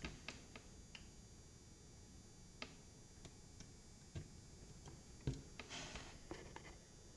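Faint scattered clicks and taps, with a short rustle and a few quick clicks about six seconds in: hands handling a small power switch on a motherboard, trying to seat it so it makes contact.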